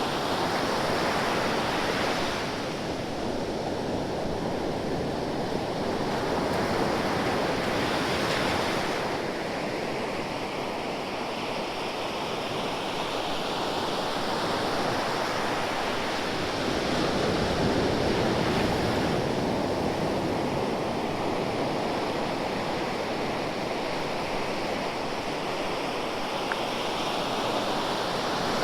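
Ocean waves breaking and washing on the shore, a continuous rush of surf that swells and eases every several seconds.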